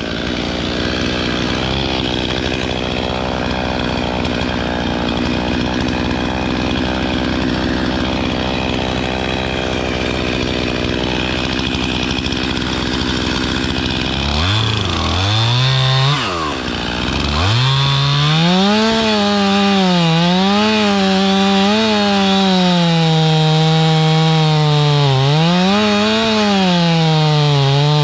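Stihl two-stroke chainsaw running under load in a cut at a lower, steady engine speed, then revving up high about halfway through, its pitch rising and falling repeatedly as the throttle is worked.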